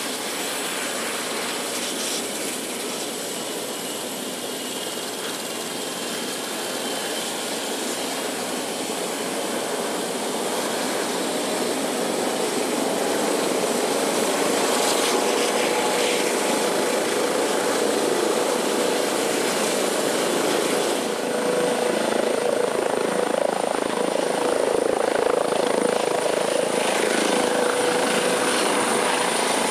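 Medical rescue helicopter running on the ground and lifting off: steady rotor and turbine noise that grows louder partway through as it powers up for take-off, with a high turbine whine coming in about two-thirds of the way through.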